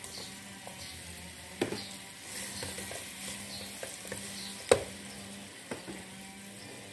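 Cooked carioca beans and pequi sizzling in hot oil in a pot while a wooden spoon stirs them, with a few sharp knocks of the spoon against the pot. The loudest knock comes a little before five seconds in.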